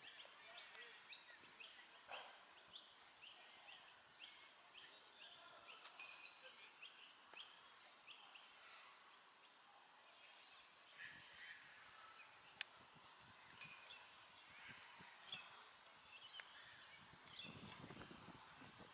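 Faint birdsong: short high chirps repeated about twice a second for the first eight seconds or so, then scattered calls. A single sharp click comes about two-thirds of the way through.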